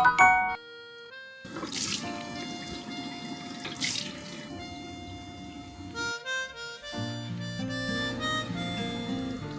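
Background music with a sustained melody. Under it, from about a second and a half in, a steady rushing noise like a running tap stops suddenly about six seconds in.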